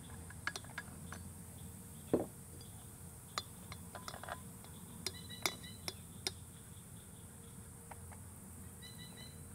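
Light metallic clicks and clinks from handling a PCP air rifle and its air bottle, a dozen or so scattered over several seconds, a few ringing briefly; a duller knock about two seconds in is the loudest.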